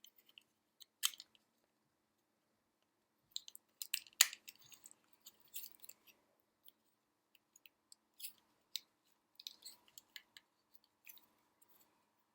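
Small plastic parts of a Korg Triton Extreme joystick assembly clicking and scraping as they are handled and twisted into their housing. The clicks are light and scattered, with a louder cluster about four seconds in.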